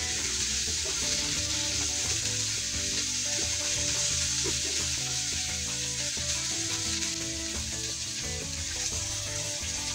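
Pork pieces sizzling steadily in a frying pan, over soft background music.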